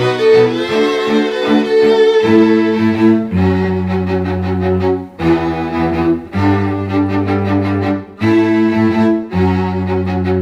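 Background music of bowed strings: sustained cello and violin notes changing every second or so, with a low bass line coming in about three seconds in.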